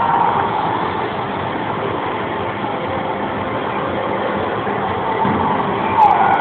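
Steady, echoing din of an indoor swimming pool hall, with a short falling sound near the end.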